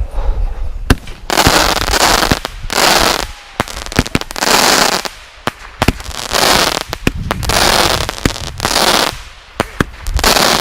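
Black Cat Blowout consumer firework cake firing in a series of shots, about one every second and a half. Each shot is a sharp bang trailing into about a second of crackling hiss.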